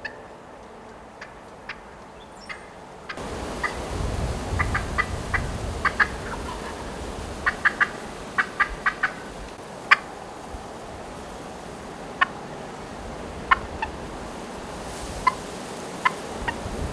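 Wild turkeys calling: short, sharp notes, some single and some in quick runs of three to five, with wind rumbling on the microphone from a few seconds in.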